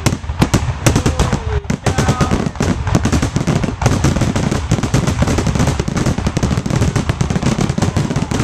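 Aerial fireworks finale: a loud, dense barrage of shell bursts and crackling, many bangs a second without a break.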